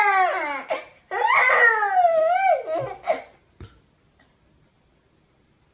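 A toddler crying: two long wails that waver and slide down in pitch, the crying stopping about three seconds in.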